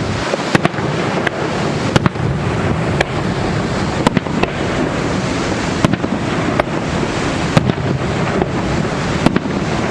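Fireworks going off: about a dozen sharp bangs and pops at irregular intervals over a steady rushing roar.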